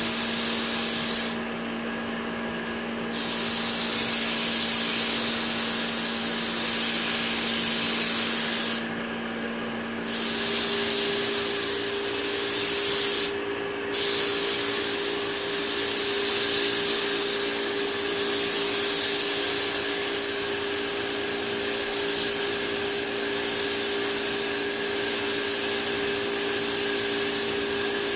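Compressed-air hiss of an HVLP gravity-feed spray gun laying a drop coat of base-tinted clear onto a car's side panels. The hiss cuts out three times when the trigger is let off: for about two seconds early, for about a second near 9 s, and briefly near 13 s. A steady hum runs underneath and shifts pitch about 10 s in.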